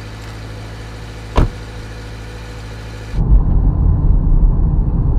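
A car door shuts with one sharp thud about a second and a half in, over a steady low hum. From about three seconds in comes the loud, low rumble of engine and road noise inside a moving car's cabin.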